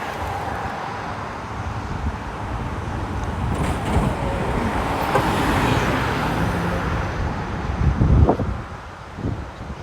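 Ocean surf washing onto the beach, building over several seconds to a peak near the end and then falling away, with wind buffeting the microphone.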